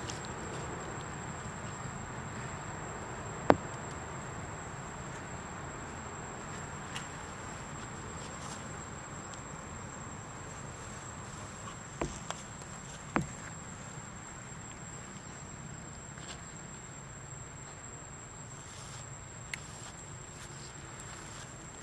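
Steady high-pitched insect drone over a low outdoor hiss, with a few sharp clicks, the loudest about three and a half seconds in.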